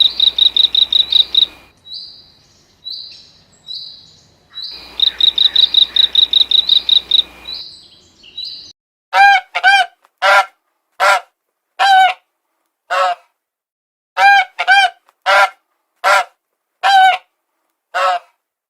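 Two bursts of rapid, high-pitched chirping trills, about ten chirps a second, with scattered single chirps between them. From about halfway in, a goose honks repeatedly, about fourteen short separate honks.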